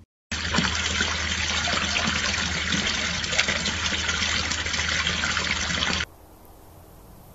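Water pouring steadily over the edge of a garden fountain basin and splashing below, with a steady low hum under it. It cuts off suddenly about six seconds in, leaving only a faint hiss.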